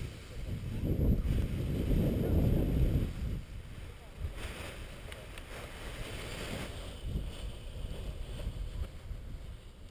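Wind buffeting the camera's microphone on a paraglider launch slope, loudest and most rumbling for the first three seconds, then settling into a steadier rush.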